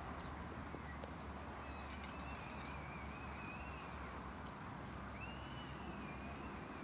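Steady low outdoor rumble from open countryside, with a thin, wavering high whistle heard twice, each for about two seconds: once from about two seconds in and again from about five seconds in.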